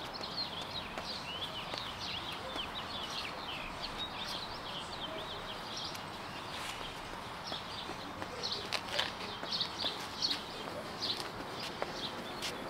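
Small birds chirping: many short, high calls scattered throughout, over a steady outdoor background hiss.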